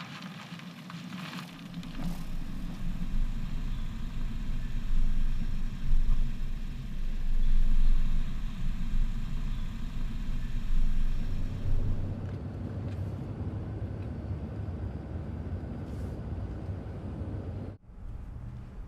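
Car driving: steady engine and road noise that changes tone about twelve seconds in, with a sudden brief dropout near the end.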